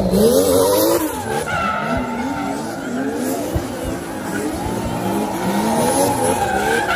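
Drift car engines revving up and down over and over as the cars slide sideways in circles, with the tyres skidding and squealing on the asphalt.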